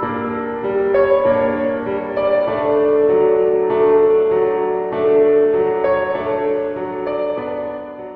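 Background music: a slow piano-led piece with sustained chords that fades out near the end.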